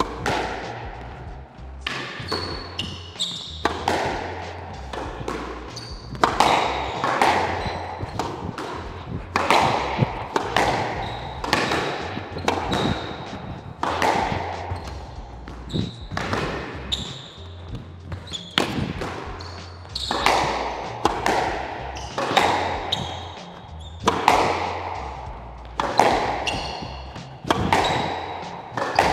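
Squash rally: the ball cracks off the rackets and smacks the court walls at roughly one hit a second, each hit echoing in the enclosed court. Short high squeaks, typical of court shoes on the floor, come between the hits.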